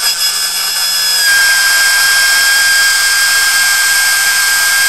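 Small permanent-magnet DC motor from a toy car spinning fast with a loud steady whine, loaded by a rod held against its spinning shaft. About a second in it gets louder and settles into an even whine.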